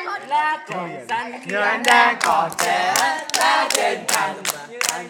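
A group of young people singing and chanting together, joined about two seconds in by rhythmic hand-clapping at around four to five claps a second that stops near the end.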